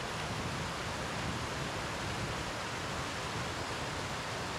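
Fast-running mountain creek rushing over rocks: a steady, even rush of white water.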